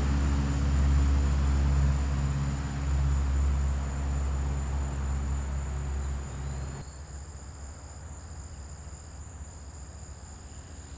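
Light single-engine taildragger's piston engine and propeller running at takeoff power, a low steady drone that fades as the plane moves away. About seven seconds in the engine sound drops off suddenly, leaving crickets chirping.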